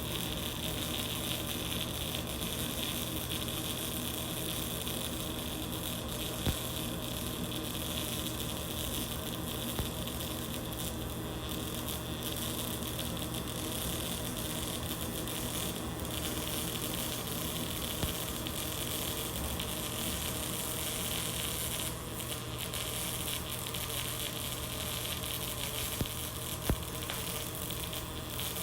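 Pulsed-spray MIG welding arc running .045" ER70S-6 wire on carbon steel pipe: a steady sizzling buzz with a low hum and a few sharp spatter pops. The spatter is heavier than normal, which the welder puts down to a nozzle that needs cleaning.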